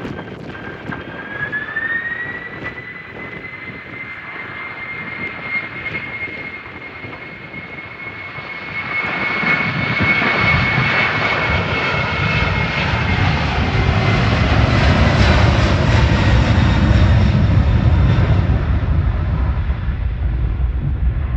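Jet airliner engines: a steady whine that rises in pitch about a second and a half in, then the engine noise grows much louder from about nine seconds with a deep rumble underneath, loudest near the end.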